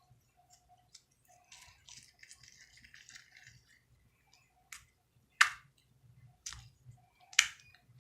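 Homemade slime being squished, with crackly, sticky squelching and scattered small clicks, then two sharp pops about two seconds apart near the end.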